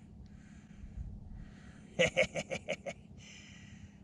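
A man's short chuckle of about seven quick voiced pulses, a couple of seconds in, over faint steady hiss.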